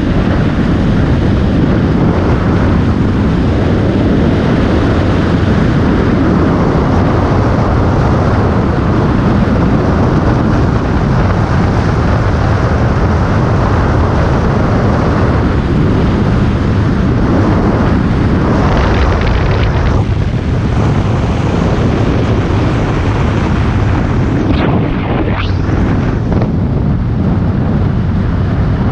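Wind rushing hard over the microphone of a motorcycle riding at road speed, with the bike's running and tyre noise underneath, in a strong crosswind carrying sand off a dry lake bed. A few sharp gusts come through a few seconds before the end.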